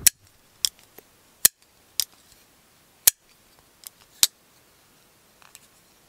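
WE Subjugator titanium frame-lock folding knife flicked open and shut again and again, giving a string of sharp metallic snaps, irregularly spaced about half a second to a second apart. The snaps are the blade swinging on its ceramic caged bearings and locking up solidly against the internal stop pins.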